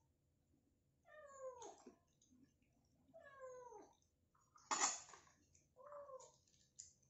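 A domestic cat meowing: two drawn-out calls falling in pitch, then a shorter one near the end, as it begs beside people eating. A single sharp knock about two-thirds of the way in is the loudest sound.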